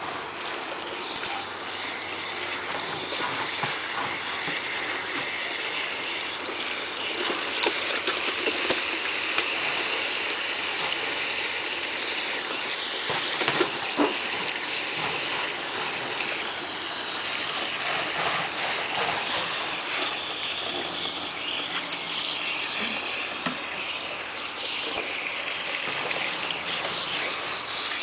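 Garden hose running into a plastic kiddie pool: a steady rush of water, with raccoons splashing in it and a few sharper splashes or knocks around the middle.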